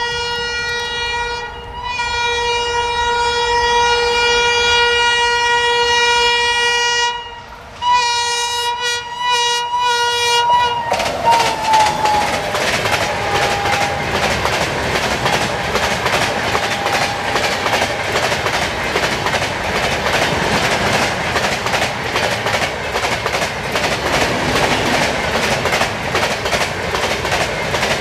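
A WAP-7 electric locomotive's horn sounds a long blast, then several short blasts. Its pitch drops as the locomotive passes at about 110 km/h. The express coaches then rush past, with a steady clickety-clack of wheels over the rail joints.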